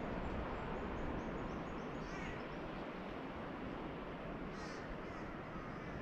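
Steady wash of gentle surf with birds calling over it: a quick run of short high notes in the first two seconds, then a few separate calls about two seconds and four and a half seconds in.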